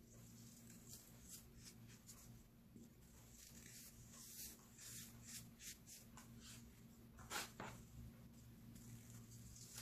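Compressed baking soda being crumbled and rubbed between fingers, the powder crunching and sifting in soft, irregular scratchy strokes, with one louder crunch about seven seconds in. A low steady hum sits underneath.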